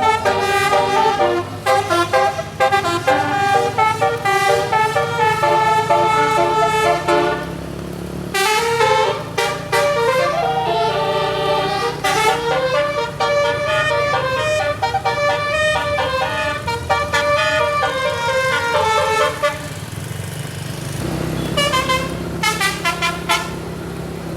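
Bus telolet horn, a multi-tone musical air horn, playing quick melodic tunes with the notes stepping up and down. Two long phrases with a short break about 8 seconds in, then a pause and a string of short toots near the end, with the bus engine running underneath.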